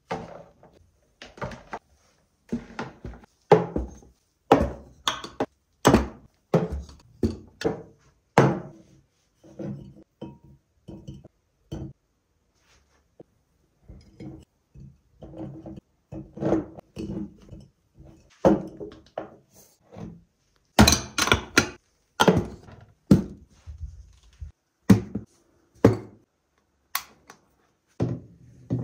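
Glass jars being handled and set down into plastic drawer organizers: a string of separate knocks and clinks, with a short quiet pause about halfway through.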